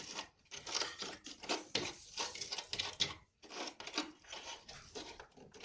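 Irregular rustling, crinkling and tearing of loose debris and nest material being handled and pulled out from inside an AC unit, where something has chewed through the wiring.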